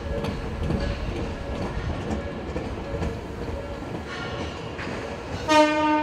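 A Tobu electric commuter train passing over a level crossing, its wheels clattering over the rail joints, with the crossing bell ringing in a steady repeating pattern. Near the end a train horn sounds loudly and is held.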